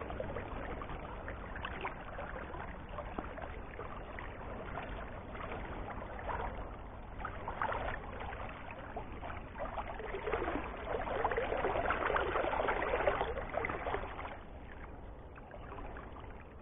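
River current running and lapping, with the splashing of a hooked lampam (a barb) thrashing at the surface as it is played in. The splashing swells about ten seconds in and dies down a little before the end.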